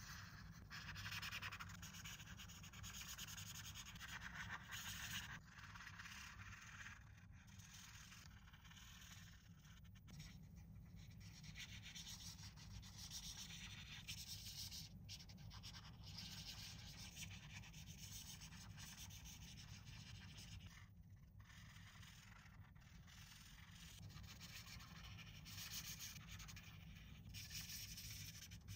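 Faint rubbing and scratching of toy packaging being handled, coming and going in stretches over a steady low hum.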